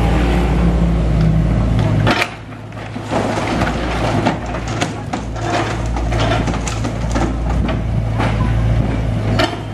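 SANY mini excavator's diesel engine running steadily while its bucket breaks up the building's wall and roof timbers, with repeated cracking, knocks and clatter of falling debris. The engine sound dips briefly about two seconds in.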